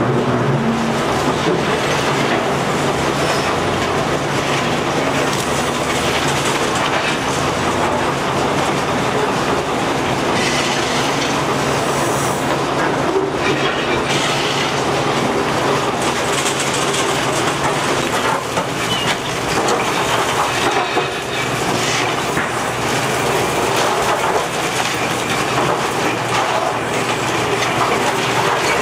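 Liebherr R944C demolition excavator working: its diesel engine runs under load as the bucket breaks and drags concrete from a building wall. Continuous crunching and scraping of concrete and metal, with frequent knocks of rubble falling.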